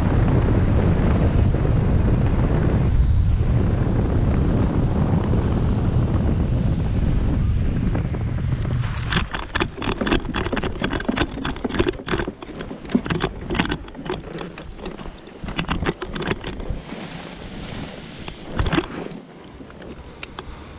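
Wind rushing over the microphone during the paramotor's low glide. About nine seconds in it gives way to a rapid, irregular clatter of footfalls and knocks: the pilot touching down and running out on grass with the motor frame and gear rattling. The clatter thins out near the end.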